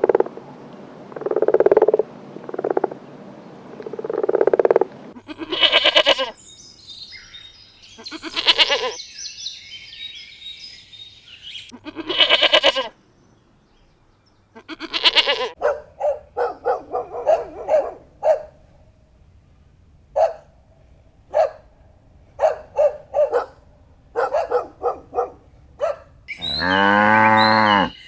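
A string of farm-animal calls: short repeated calls, then a few loud calls, then a long run of short calls. Near the end comes one long, low moo from a cow.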